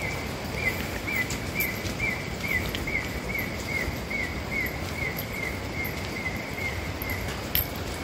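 Tropical forest ambience: a steady even rushing background with a small creature's call, a short falling chirp on one pitch repeated about twice a second, which stops near the end. A single sharp click comes just after it stops.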